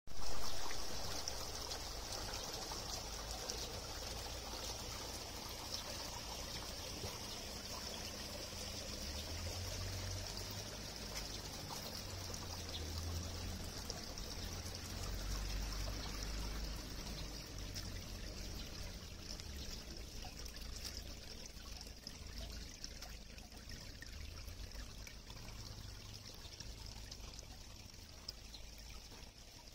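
Water trickling steadily over the rim of a black stone fountain basin and running down its polished sides into a grated drain. Loudest in the first second, it stays even and then fades slowly over the second half.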